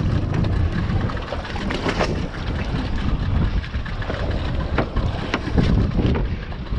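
Wind buffeting the microphone over the wash of the sea around a small open fishing boat, with a few scattered knocks and clicks as a plastic case is handled.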